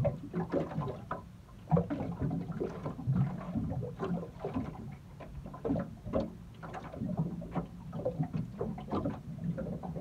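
Sounds of a small fishing boat on the water: water slapping against the hull, with irregular light knocks and clicks.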